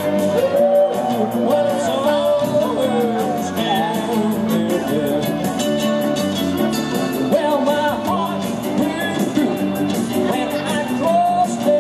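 A rock and roll song played by a live band: singing and guitar over a steady beat.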